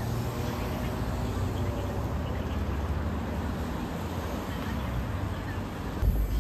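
City street traffic at an intersection: cars passing with a steady low rumble and general street noise.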